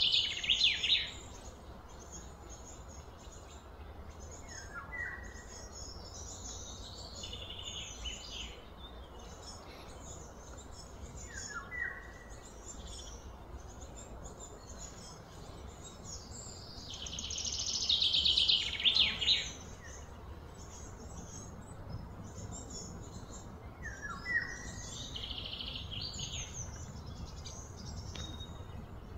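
Birds chirping and calling. There are loud bursts of rapid high chirps at the start and again about two-thirds through, and a short call that slides down in pitch and repeats every several seconds. A steady low rumble runs underneath.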